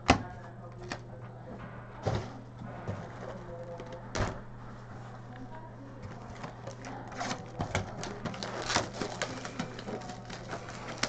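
Hockey trading cards being handled and set down on a table: sharp taps a couple of seconds apart, then a quicker run of lighter clicks and rustles. A steady low electrical hum runs underneath.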